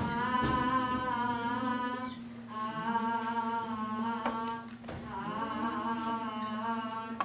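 A female voice humming a slow, wordless tune in long held notes with a slight waver, in three phrases separated by short pauses.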